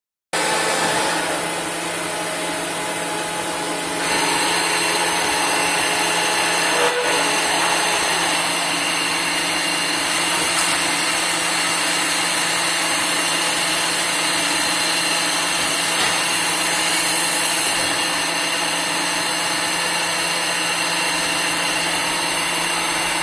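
CNC lathe turning a velocity-stack trumpet from metal bar stock: steady machine running and cutting noise with a constant hum. It gets a little louder about four seconds in, with one sharp click a few seconds later.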